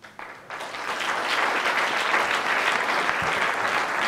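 Audience applauding, swelling about half a second in and then holding steady.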